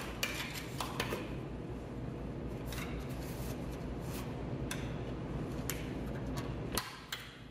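Epoxy putty being pressed and smoothed by hand along a vinyl window frame: soft rubbing and scraping with small clicks now and then. A steady background rush drops away near the end.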